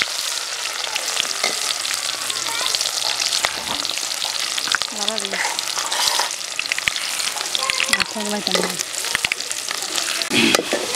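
Chopped onion sizzling and crackling in hot oil in an aluminium pot, with a metal spatula stirring and scraping through it.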